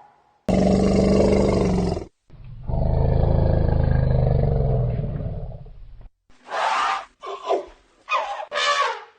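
A large animal's deep roaring calls: one of about a second and a half, then a longer one of nearly four seconds that sinks slightly in pitch. Several shorter, higher gliding calls follow near the end.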